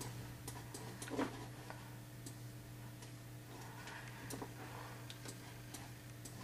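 Faint computer mouse clicks at irregular intervals as a brush is dabbed on in an image editor, over a low steady hum.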